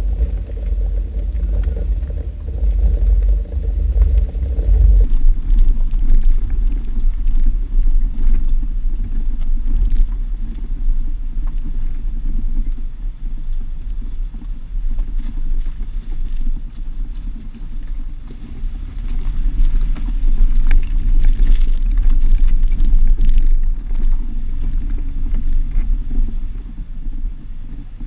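A Jeep driving off-road, heard from its driver-side mirror: a loud low rumble of engine and tyres that swells and fades, with scattered knocks and rattles. The sound changes abruptly about five seconds in.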